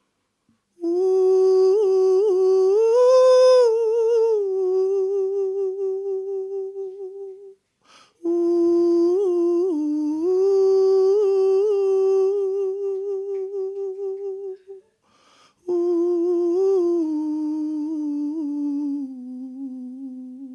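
A man humming wordlessly, unaccompanied, in three long held phrases with a short pause between each. The notes waver with vibrato and the last one slides lower as it fades.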